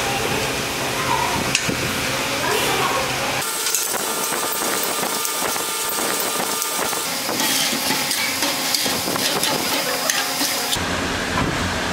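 Steady hissing workshop noise while a steel gym machine frame is being assembled, changing abruptly about three and a half seconds in and again near the end.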